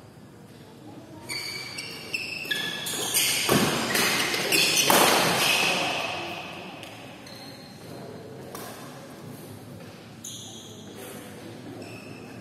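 Badminton rally: rackets smacking the shuttlecock and sneakers squeaking on the court mat, echoing in a large hall. The activity is busiest and loudest between about two and six seconds in, then eases off.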